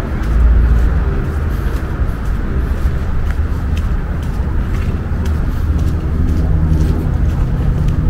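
Outdoor city park ambience: a steady low rumble of distant traffic, with faint footsteps on the dirt path.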